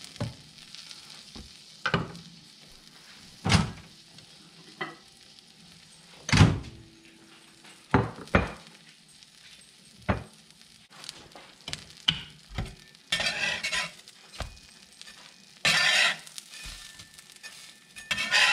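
Grilled cheese sandwiches sizzling faintly on a cast iron griddle, with scattered knocks and clatter of utensils, the loudest about six seconds in. Near the end a metal spatula scrapes under the sandwiches.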